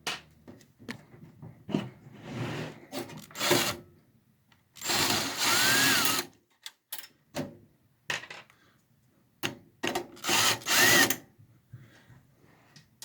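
Power drill backing out the mounting screws of a computer's power supply: two runs of about a second and a half each, the motor whine rising then falling. Clicks and knocks of handling come between the runs.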